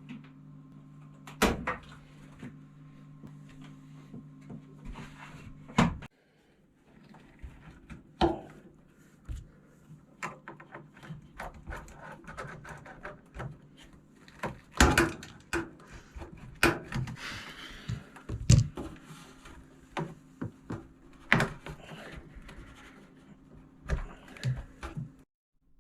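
Irregular knocks, clicks and thuds, as of parts and panels being handled, over a steady low hum. The hum drops out about six seconds in, comes back, and stops shortly before the end.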